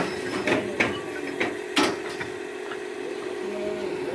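Fired clay bricks knocking against each other and against the brick roof surface as they are handled and laid: about five sharp clacks in the first two seconds, then a few fainter ones, over a steady faint hum.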